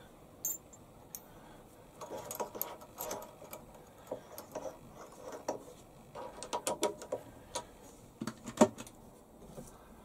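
Scattered metallic clicks and rattles of a drill chuck being opened and tightened by hand while a drill bit is changed, coming in small clusters with one sharper click near the end.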